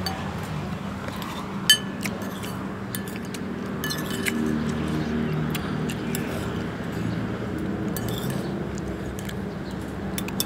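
Spoon and fork clinking against a plate: one sharp ringing clink just under two seconds in, then scattered lighter taps, over a steady low background hum.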